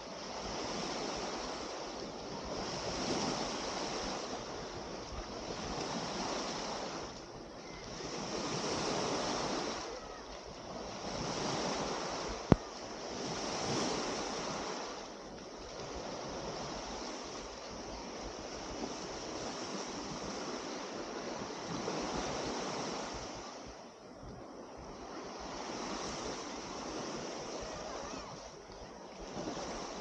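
Small waves breaking and washing up a sandy beach, swelling and fading every few seconds. A single sharp click comes about twelve seconds in.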